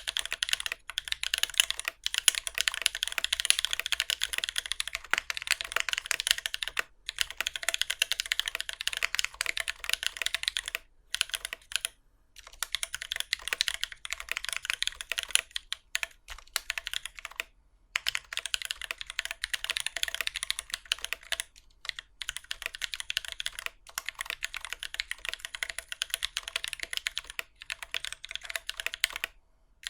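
Typing on a Keycult No.2 Rev.1 mechanical keyboard, a brass case with a gasket-mounted brass plate, fitted with lubed Holy Panda tactile switches and GMK keycaps. Fast, continuous keystrokes that bottom out hard, broken by several short pauses.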